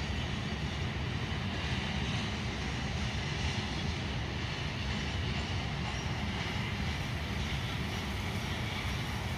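Freight train cars rolling past on the track: a steady low rumble of wheels on rail with a lighter hiss above it.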